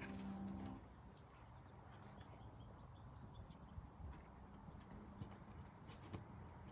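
Faint outdoor quiet with a steady high-pitched trill of crickets and a few light ticks; the last note of music dies away in the first second.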